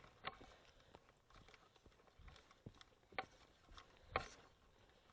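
Near silence broken by a few short, faint clicks and knocks, the loudest a little after four seconds in.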